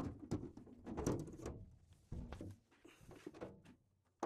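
Front cover panel of an Enphase IQ Battery 10T being lifted off its enclosure: a run of knocks, scrapes and rattles, busiest in the first second and a half, then a few separate knocks.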